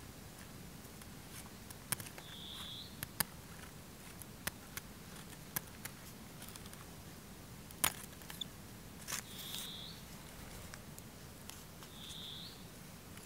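Scissors snipping paper: a run of short, sharp clicks at irregular intervals as the blades close. A short high chirp sounds three times.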